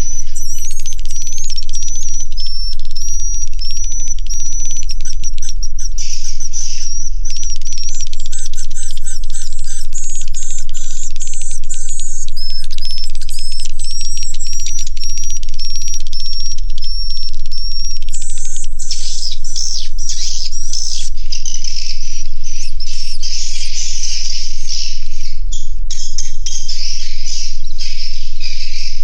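A dense colony of edible-nest swiftlets twittering and chirping inside a swiftlet house, many high calls overlapping continuously. One short call repeats at a steady pace through the first two-thirds.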